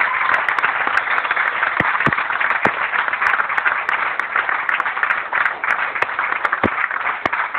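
Audience applauding: a steady wash of many hands clapping, with a few sharp individual claps standing out.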